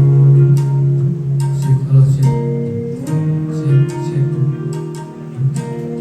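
Instrumental music led by guitar, with held notes over a regular beat.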